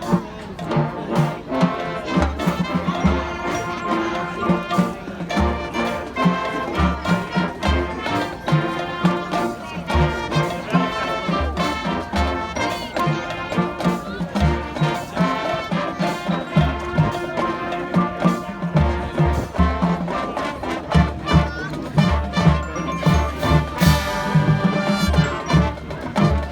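High school marching band playing, brass over a steady drum beat, with a loud crash near the end.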